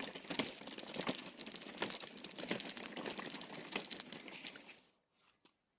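Crinkly rustling with many small clicks, like plastic or fabric being handled close by, which cuts off abruptly about five seconds in.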